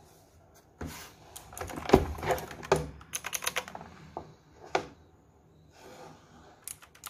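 Clicky blue switches of an RII mechanical gaming keyboard being pressed in irregular clusters of sharp clicks. A heavier knock about two seconds in comes from handling the keyboard as it is lifted out of its box.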